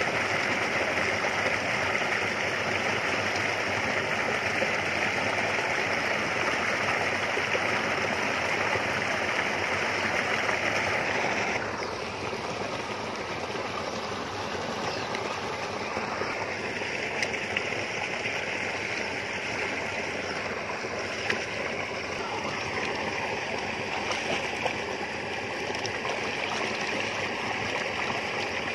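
Steady rushing noise, which drops a little and changes in tone about twelve seconds in, with a few faint clicks later on.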